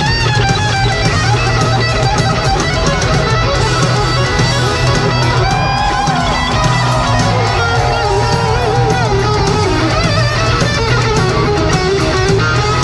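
Live hard-rock band through a stadium PA: an electric guitar plays a lead line with bending notes over bass and drums.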